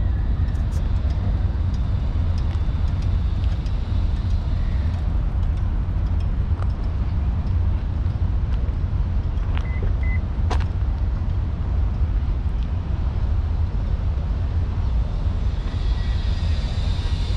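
Steady low rumble of distant road traffic, with two short high chirps about ten seconds in.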